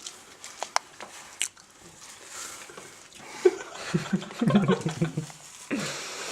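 Short, irregular vocal noises from a person with a mouth stuffed full of TUC crackers, coming in a run about halfway through, after a few faint clicks.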